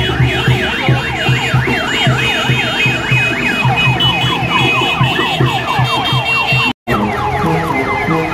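Several electronic sirens wailing at once in fast, overlapping rising-and-falling sweeps, over a low, evenly repeating pulse. The sound drops out for an instant near the end and then carries on.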